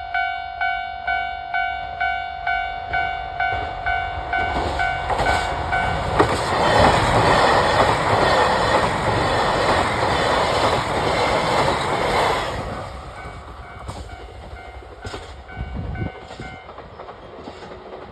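Level crossing warning signal clanging about twice a second as a diesel limited express train approaches. The train then passes loudly for about six seconds, the rumble and wheel noise drowning the signal, and falls away sharply near the middle, leaving a few wheel clacks.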